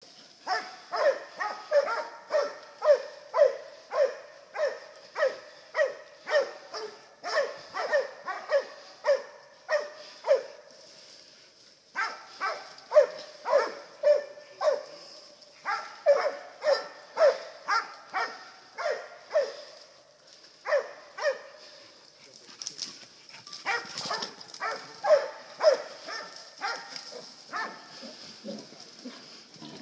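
Hog-hunting dog barking steadily at a bayed hog: short, regular barks about two a second, in long bouts with brief pauses.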